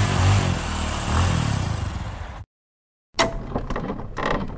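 Motorcycle engine revving, cutting off abruptly about two and a half seconds in. After a brief silence, a few sharp clicks and a short tone begin.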